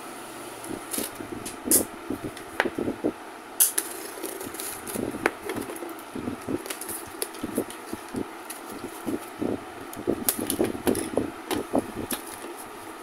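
A cardboard shipping box being cut open and handled: a utility knife scraping through the packing tape, then the flaps pulled apart, giving irregular taps, scrapes and cardboard rustles.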